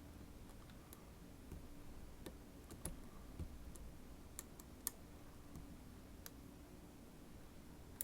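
Faint, irregular small clicks of lockpicking tools working in a DOM RS8 lock cylinder, over a faint low hum.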